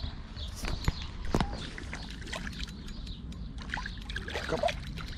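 Water splashing and sloshing as a hooked pike thrashes at the surface close to the bank, with a couple of sharp knocks about a second in.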